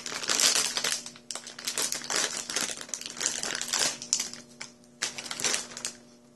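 Plastic snack bag crinkling as it is worked open by hand, in a run of crackly bursts over about four seconds and one more short burst about five seconds in.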